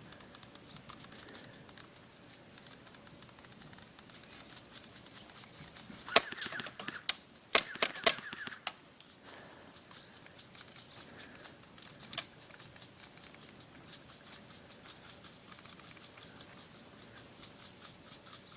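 Airsoft gun firing: two quick bursts of sharp clicks about six and seven and a half seconds in, then a single shot near twelve seconds.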